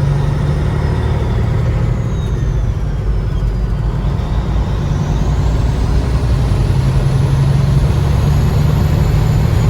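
Road vehicle driving at steady speed: a constant low engine hum with road noise, slightly louder in the second half.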